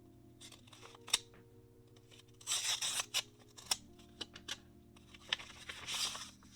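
Mail packaging being opened by hand: two short rasping bursts a few seconds apart, with scattered small clicks and taps, over soft background music.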